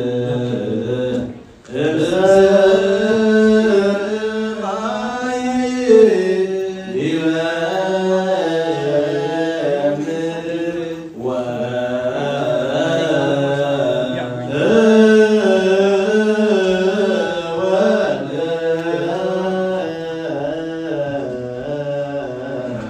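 Male voices chanting an Orthodox Tewahedo Nativity hymn through microphones, in long rising and falling phrases with brief breaks about 1.5 s and 11 s in.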